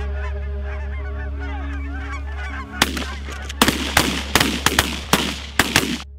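A flock of geese honking, with many overlapping calls over a steady low hum. From about three seconds in, a run of loud, harsh, abrupt honks comes in quick succession.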